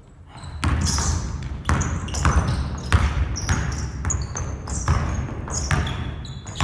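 Basketball dribbled hard on a hardwood gym floor, a bounce about every half second, with sneakers squeaking as the players move; the impacts echo in the large hall.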